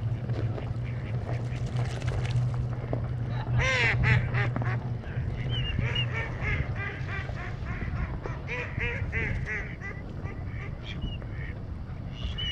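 A flock of ducks on open water quacking: a loud run of quacks about four seconds in, then further series of short quacks through the middle and a few near the end. A low steady hum underneath fades out about five seconds in.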